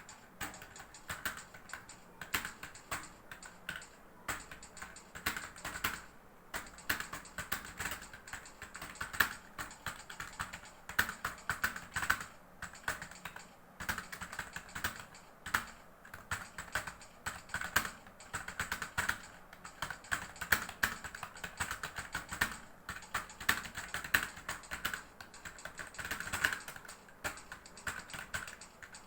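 Fast, continuous typing on a computer keyboard: a steady stream of key clicks at about 55 words per minute.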